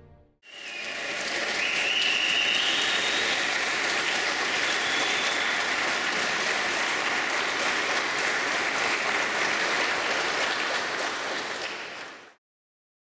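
A large crowd of karate students applauding, the clapping dense and steady, rising in about half a second at the start and cutting off abruptly near the end.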